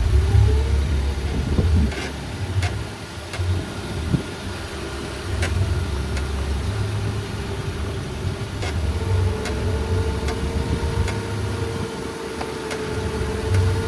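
Toyota Avanza car driving slowly, heard from inside the cabin: a low engine and road rumble with a faint whine that rises in pitch about nine seconds in. A dozen or so sharp clicks come at uneven intervals throughout.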